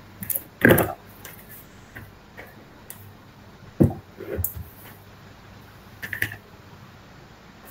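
A handful of short clicks and knocks at irregular intervals over a faint steady hum, the loudest just under a second in and another a little before the four-second mark, typical of small handling noises picked up by a computer microphone.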